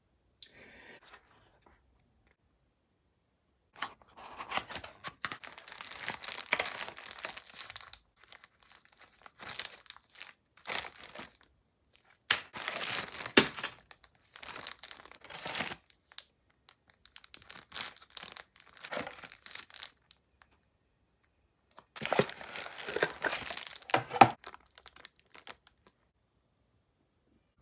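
Clear plastic parts bags crinkling as they are slid out of a cardboard box and handled, in several bursts with short pauses, starting a few seconds in.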